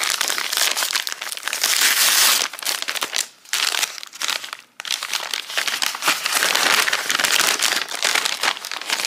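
Brown paper bag being unfolded and opened by hand: loud crinkling and rustling of the paper, broken by two short pauses in the middle.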